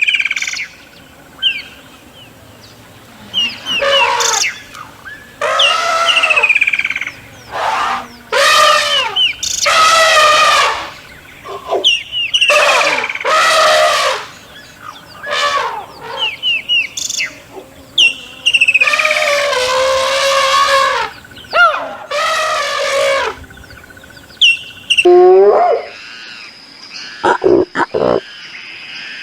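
A rapid series of loud bird calls: separate pitched cries, some falling in pitch, each lasting half a second to two seconds. Near the end they give way to a quieter stretch with a steady high tone.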